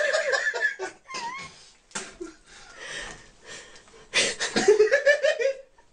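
Domestic cat meowing in several cries, a short wavering one about a second in and the loudest, longer ones near the end.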